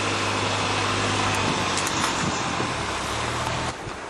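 A motor vehicle's engine running steadily with a low hum, over a steady rushing outdoor noise; both drop away suddenly shortly before the end.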